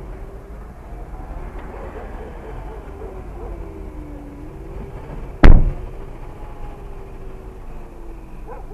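Motorcycle engine running at low speed with a steady low rumble and a faint pitch that drifts up and down, and one loud, sharp thump about five and a half seconds in.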